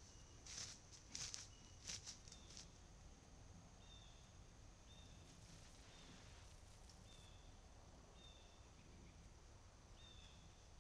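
Near silence on a trail camera's microphone. In the first couple of seconds there are a few faint rustling steps in the grass as the whitetail buck walks off. Then a faint, short, high chirp repeats about once a second.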